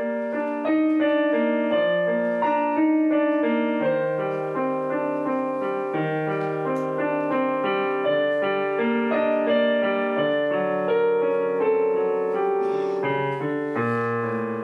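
Instrumental keyboard music with a piano-like tone: chords and a melody in held notes, with no drums or voice.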